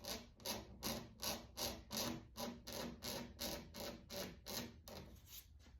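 Razor blade scraped in quick, even strokes over runs in cured automotive clear coat, about three to four strokes a second, shaving down the high spots of the runs. The strokes grow fainter near the end.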